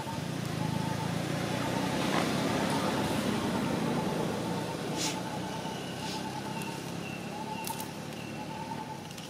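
Low rumble of a vehicle going by, swelling over the first couple of seconds and then slowly fading, with a few faint clicks.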